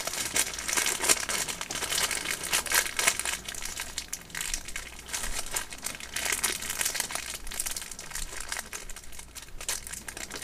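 Irregular crinkling and rustling handling noise with small clicks, as hands fit a spring and washer onto a cube's core screw.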